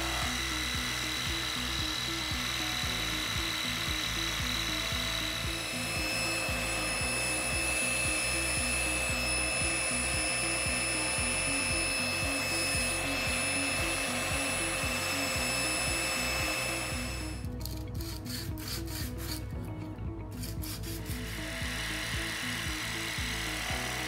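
Background music with a steady beat over workshop sounds: a Dremel Moto-Saw scroll saw cutting a hardwood handle blank at the start and near the end, and wood being rubbed and worked by hand in the middle.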